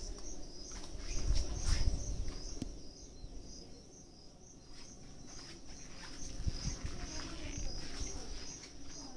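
A cricket chirping steadily in an even, rapid pulsing rhythm, with a low rumble of wind or handling on the microphone about one to two seconds in.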